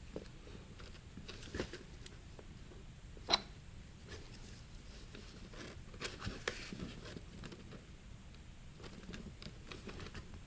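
Light metal clicks and taps of automatic-transmission clutch parts being handled and pressed into place, with one sharper click about three seconds in.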